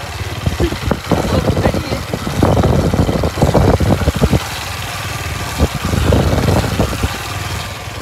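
Motorcycle engine running as the bike is ridden, mixed with gusty wind buffeting the phone's microphone.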